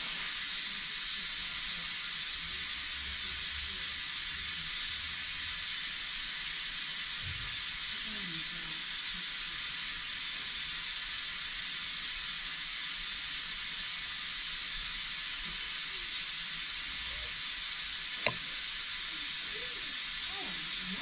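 Compressed-air venturi vacuum brake bleeder running, a steady loud hiss that starts abruptly, sucking fresh brake fluid through the lines. A single sharp click about eighteen seconds in.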